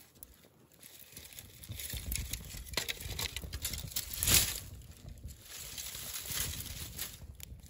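A freshly lit campfire of tinder, kindling and pine pitch catching and crackling, with many small snaps and rustles. After a quiet first second, there is a brief louder whoosh about four seconds in.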